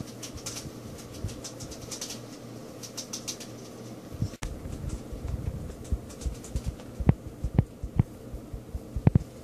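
Small terrier sniffing at a rat cage in rapid bursts of short hissy sniffs, then a run of soft thumps and several sharp knocks as its nose bumps the cage's plastic base.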